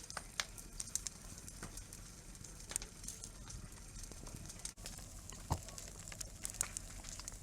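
Wood campfire crackling, with scattered sharp pops and one louder pop about five and a half seconds in, over a faint steady low hum.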